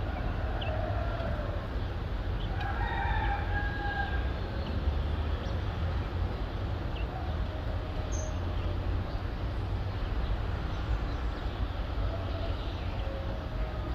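A rooster crowing, one drawn-out call about three seconds in, with fainter crows at other times. Under it is a steady low rumble of city traffic, with a few short high chirps.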